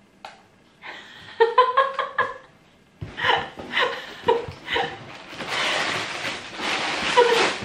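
A woman laughing in short repeated bursts, then a longer breathy, hissing stretch of laughter near the end.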